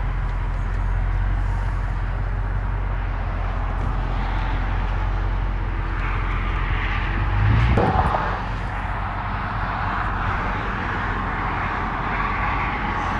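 Car engine idling steadily, then revving louder for a moment about eight seconds in as the car pulls away.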